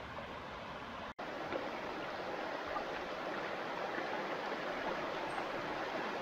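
Steady rushing of a stream's running water, with a momentary break about a second in.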